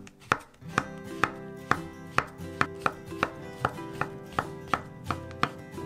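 Background music: sustained chords under a steady beat of sharp, clicky notes about two a second.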